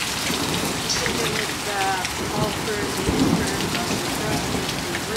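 Hail and heavy rain pelting down, a dense, steady patter of small impacts, slightly heavier about three seconds in.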